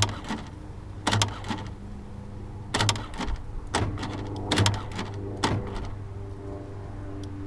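2001 Volkswagen Jetta's power door locks clunking as lock and unlock are worked in turn: about five quick double clicks from the lock actuators, over a steady low hum. One door's lock does not lock with the others, a fault in that door's lock.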